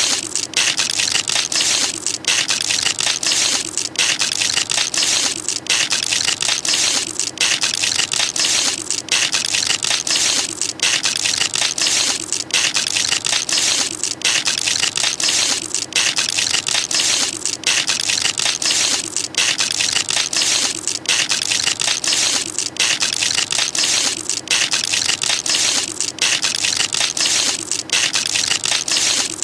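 The 'gorillize' transformation sound effect: a loud, dense crackling and crunching noise that runs on without letting up, broken by short dips every second or two.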